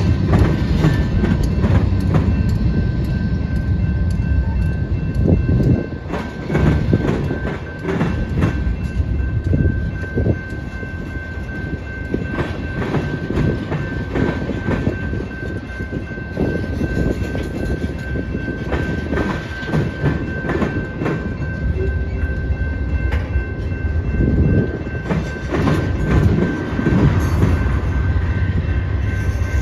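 Freight train rolling past: a steady low rumble of the cars, with repeated clanks and clicks of wheels over rail joints throughout and a faint thin whine held steady.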